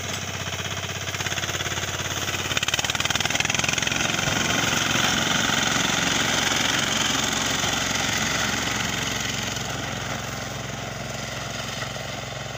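Four-wheel reaper binder cutting wheat, its small engine running steadily under load. The sound grows louder a few seconds in as the machine passes close, then fades near the end as it moves away.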